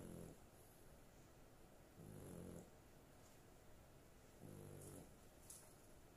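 A sleeping dog snoring faintly, with a short pitched snore about every two and a half seconds, three times.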